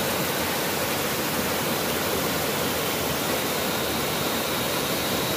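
A waterfall: a tremendous, steady rush of falling water, even and unbroken.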